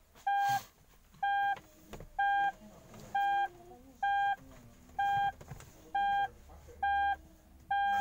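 Heart monitor beeping steadily, about one short beep of the same pitch a second, each beep marking a heartbeat at a regular rate of roughly 60 a minute.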